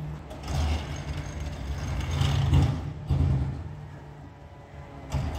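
Peterbilt 520 garbage truck with a McNeilus ZR side-loader body, its engine running with a deep low rumble that swells and eases, loudest about two and a half seconds in.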